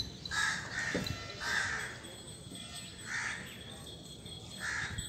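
A crow cawing repeatedly: about five short, harsh calls, a second or so apart.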